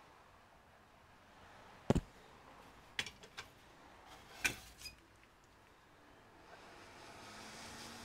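Small objects handled on a workbench: a handful of short sharp clicks and knocks, then a steady hiss that builds near the end.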